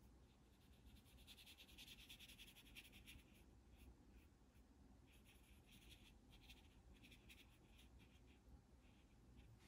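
Faint brushing of a watercolor paintbrush over thick watercolor paper: a couple of seconds of continuous strokes, then shorter separate strokes.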